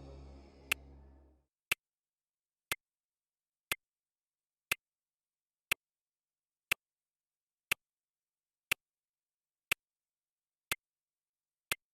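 A clock ticking steadily, one tick a second. Low background music fades out in the first second and a half.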